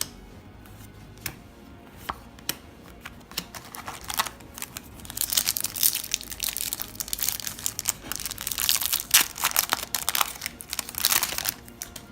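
A plastic booster-pack wrapper being torn open and crinkled by hand, with a few light clicks of card handling first, then several seconds of dense crinkling from about five seconds in.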